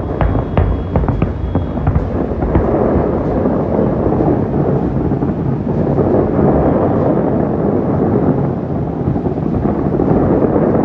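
Fireworks display going off: a dense, unbroken run of booms and rumble, with sharp cracks and pops in the first two seconds.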